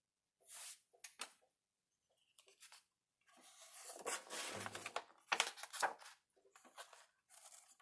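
A page of a hardcover picture book being turned by hand: a couple of short faint rustles, then paper swishing and rustling for about two seconds from around three seconds in.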